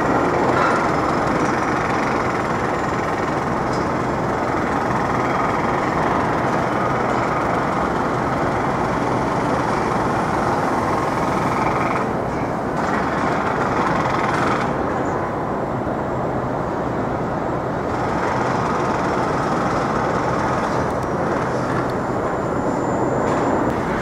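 Steady city street noise from passing traffic, with a low hum underneath.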